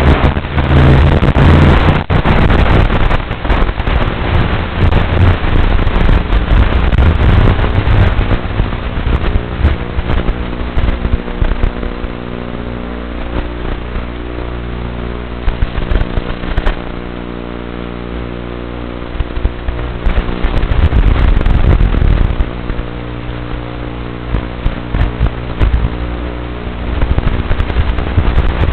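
Loud, harsh static with a steady buzzing hum, the audio carried over the micro quad's analog FX798T camera/video-transmitter link. It is at its harshest in the first several seconds and again near the end, and eases off in the middle, where the hum stands out more clearly.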